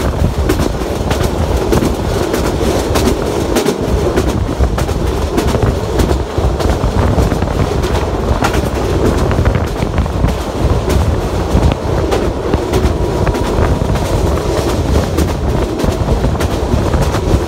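Bangladesh Railway's Korotaya Express intercity passenger train running at speed, heard from on board: a steady loud rumble of the wheels on the track with frequent sharp clicks of the wheels over rail joints.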